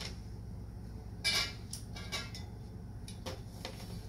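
Metal bolts and frame parts of a game being assembled, clinking and knocking as they are handled and fitted: a handful of separate sharp knocks, the loudest a little over a second in, over a steady low hum.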